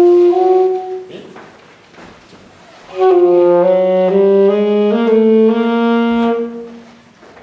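Student saxophones playing with the lower lip rolled far into the mouth, an exaggerated embouchure exercise. One held note comes first. About three seconds in, two saxophones play long notes together for about three and a half seconds, stepping up in pitch a few times.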